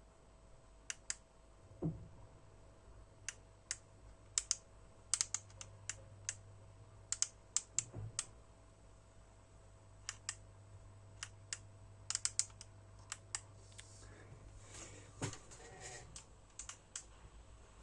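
Irregular short, sharp clicks of small plastic keys or buttons, singly and in quick pairs, over a faint steady electrical hum and a thin steady tone.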